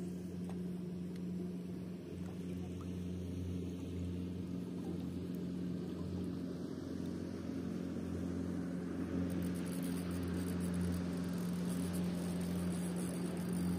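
A motorboat engine running steadily at a distance: a low, even hum that grows slightly louder in the second half, with a faint hiss of water rising alongside it.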